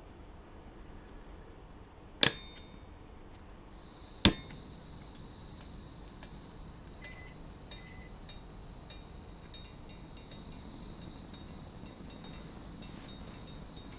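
Iwatani-Primus P-173 gas stove: two sharp clicks a couple of seconds apart, then the burner starts running with a steady high-pitched tone and a string of light ticks about every half second.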